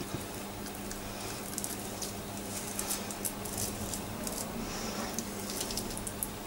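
A metal spoon scooping stuffing and pressing it into raw chicken breasts: soft squishing with scattered light scrapes and clicks, over a steady low hum.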